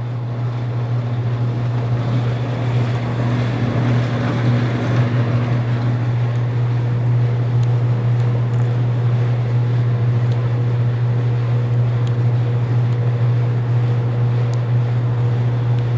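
Bluedog BWS-80 HD wire stripping machine running with a steady, loud hum as a thin 12-gauge wire is fed through to have its coating slit off. An extra tone and rougher noise sit on the hum for the first six seconds or so, then the machine runs on evenly.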